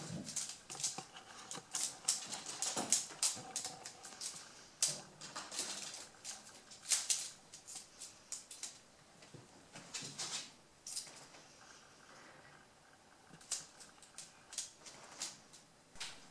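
Baby rabbits moving about their pen, making quick irregular rustles and crackling clicks. They are busy in the first half and sparser later.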